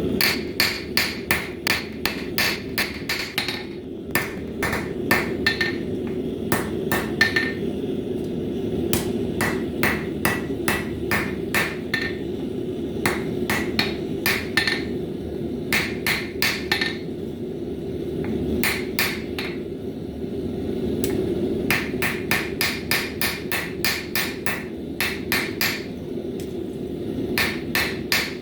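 Hand hammer striking a bar of 1075 high-carbon steel on an anvil, in runs of quick blows about three or four a second with a bright ring, broken by short pauses. A steady low rumble runs underneath.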